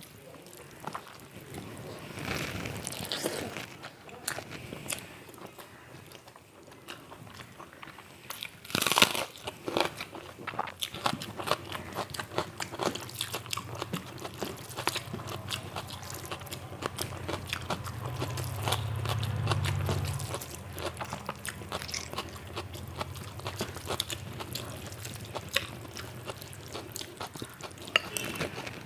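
Close-up eating sounds: a person biting and chewing crunchy food, with many small wet mouth clicks and one loud crunch about nine seconds in. A low hum swells and fades around the middle.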